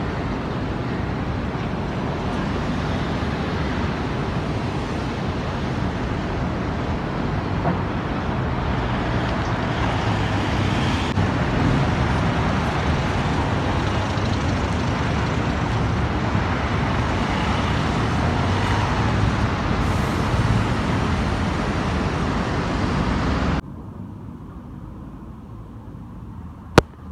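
City road traffic: a steady wash of passing cars and engine rumble. Near the end it drops suddenly to a quieter, thinner street hum, with one sharp click shortly before the end.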